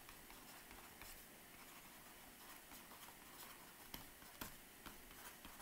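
Faint ticks and scratches of a stylus writing on a tablet, heard over near-silent room tone.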